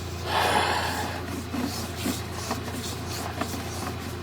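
Sewer inspection camera scraping and rubbing along the inside of a scale-encrusted sewer pipe, with faint irregular clicks over a steady electrical hum. A short hiss comes about half a second in.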